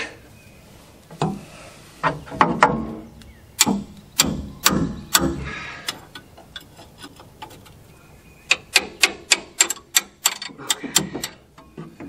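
Metal tools clanking and clicking against the bolts of a backhoe's hydraulic pump as a wrench is worked to break them loose: several heavier knocks in the first half, then a quick run of evenly spaced clicks, about five a second, near the end.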